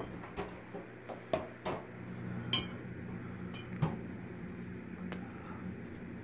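Silver-plate tableware clinking as pieces are picked up and set down: about nine irregular sharp clinks, the loudest about two and a half seconds in, over a steady low hum.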